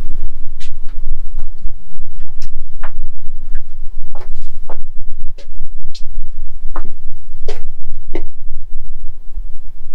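Loud, steady low rumble with about a dozen short, sharp knocks and creaks scattered through it, typical of someone stepping and moving along attic plywood boards and timber framing.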